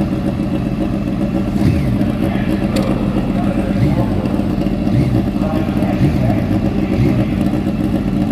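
Drag-racing sport motorcycles idling at the starting line, with several short throttle blips that rise and fall in pitch about once a second.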